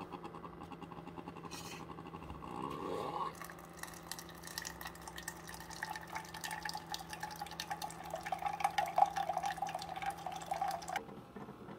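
Keurig K-Cafe coffee maker running a 12-ounce brew cycle of descaling solution: the brewer hums steadily, and from about three seconds in a thin stream of liquid pours and splashes into a plastic measuring cup. The flow stops abruptly near the end.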